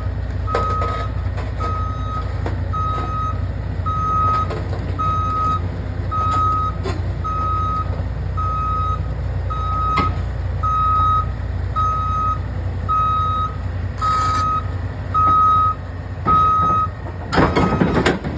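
Delivery truck backing up with its reversing alarm beeping at a steady pitch about once a second over the low, steady running of its engine. A few louder bursts of noise come near the end.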